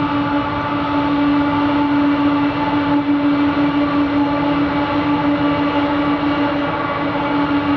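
Two diesel-electric locomotives hauling a coal train, their engines running with a steady hum over the rumble of the train.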